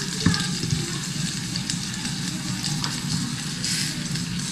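Skewered chicken rolls wrapped in ham searing in oil in a hot stainless steel pan, a steady sizzle, with a few light clicks.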